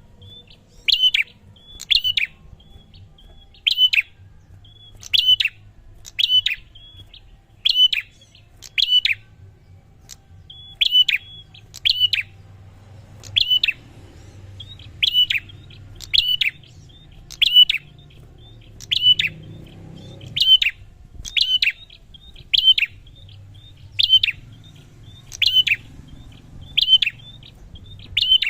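A prinia (prenjak) calling: a loud, sharp chirp repeated about once a second, with softer short notes between.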